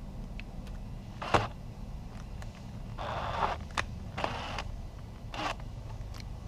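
Hand tools being handled while a drill bit is changed: a sharp click about a second in, then a few short scrapes and clicks, over a low steady hum.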